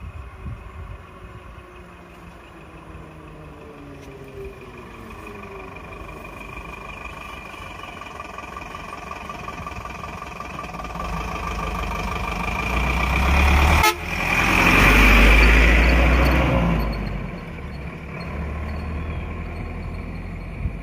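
Small Tata box truck's engine running close by, growing louder, with steady high whining tones over it. About two-thirds of the way through a sharp knock is followed by the truck pulling away loudly, then the engine sound drops back.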